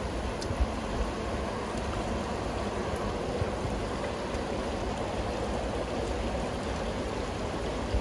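Steady rush of running water, with a brief thump about half a second in.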